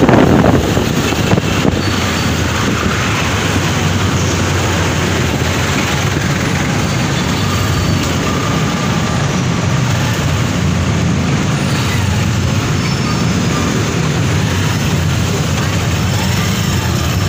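Honda CB125 motorcycle engine running with a steady drone at low speed while filtering through slow traffic, with surrounding road traffic noise. Briefly louder at the very start.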